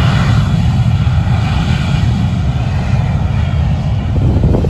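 Airplane engines of a low-flying aircraft, a loud steady rumble with a fainter whine above it.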